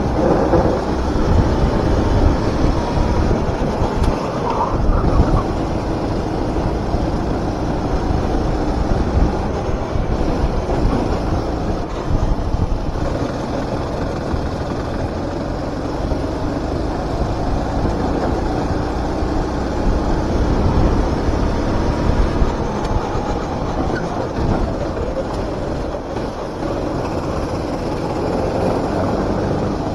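Four-stroke rental go-kart engine heard onboard at racing speed, its pitch rising and falling slowly, over heavy rumble and noise.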